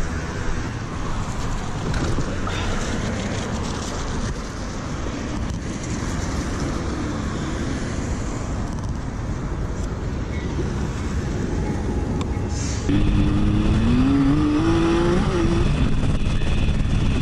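Steady wind and road rumble on a motorcycle helmet camera. About three-quarters of the way through, it gives way to a louder motorcycle engine pulling, its pitch rising as it accelerates.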